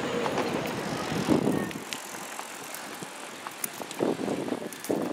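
Wind rumbling on the microphone for the first couple of seconds, then a bicycle riding past on the boardwalk, with scattered light clicks and a few brief swells of noise.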